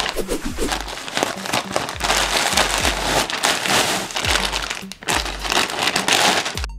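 Plastic packaging crinkling and rustling: a polymailer, bubble wrap and a clear plastic cap bag being handled and torn open, with dense crackles throughout. Background music with a low, steady beat plays underneath.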